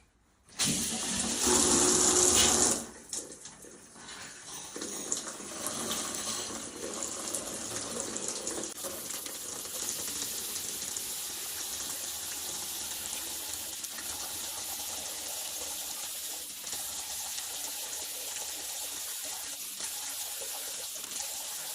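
Shower water running through a newly fitted Grohe mixer cartridge, turned on to test for leaks and hot water: a loud gush for about two seconds, then a steady flow.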